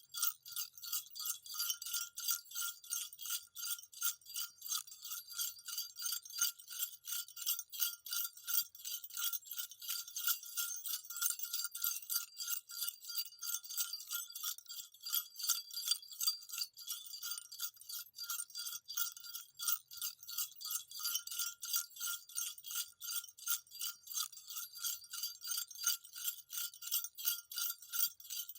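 Small jingle bells shaken continuously: a high-pitched jingling of rapid, closely packed strikes with a steady ringing tone underneath.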